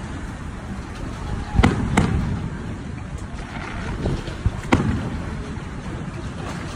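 Aerial firework shells bursting: two sharp bangs close together a little over a second and a half in, then a few lighter pops and another sharp bang near five seconds, over a steady background hiss.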